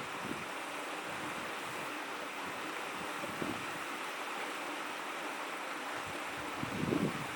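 Shallow stream babbling steadily, with a few short deeper gurgles, the strongest near the end.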